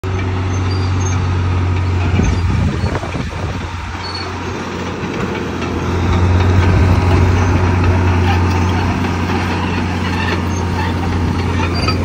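Komatsu D65E crawler bulldozer's diesel engine running under load as its blade pushes a mound of beach sand: a steady low drone that eases a few seconds in and swells again about halfway through.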